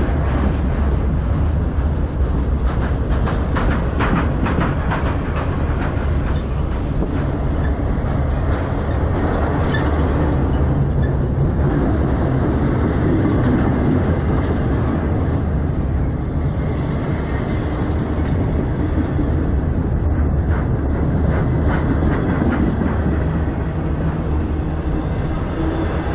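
Freight train's flatcars rolling past right beside the track: a loud, steady rumble of steel wheels on rail, with a run of clicks over the rail joints a few seconds in.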